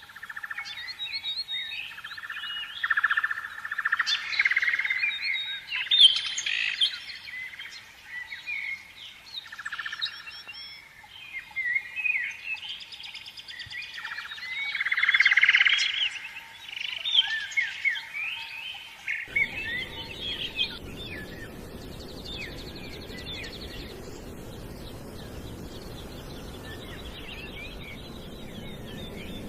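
Small birds chirping and twittering, many short calls overlapping. About nineteen seconds in the sound changes suddenly to a steady hiss with fainter, sparser chirps.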